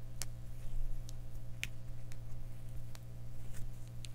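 Hands braiding a section of hair, giving a few faint scattered clicks and crackles about once a second over a steady low hum.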